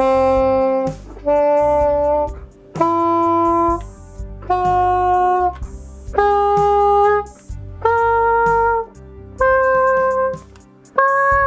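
Nuvo jSax 2.0, a small plastic saxophone-style wind instrument, playing a rising scale from do up to the high do: eight separate held notes, each about a second long, with short breaks between them.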